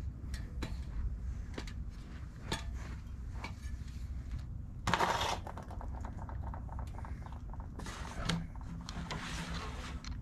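Scattered clicks and knocks of work with metal hardware. A short scraping rush comes about five seconds in and a longer, weaker one near the end, over a low steady rumble.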